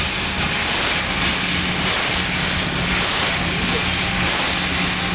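Laser cutting machine for steel plate running: a steady hiss over a constant low hum.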